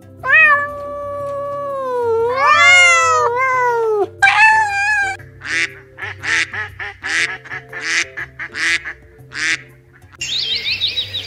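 A flock of domestic ducks quacking, a run of about nine short quacks. Before it comes a long, loud, wavering pitched animal call, followed by a shorter, higher one, and bird chattering begins near the end, all over quiet background music.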